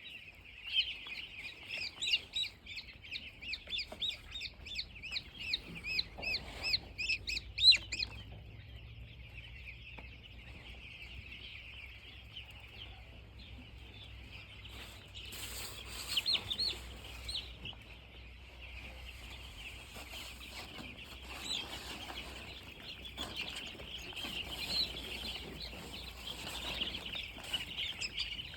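Many young chicks peeping. For the first eight seconds or so the peeps are loud, rapid and distinct, several a second, then they merge into a denser, steadier chorus of peeping.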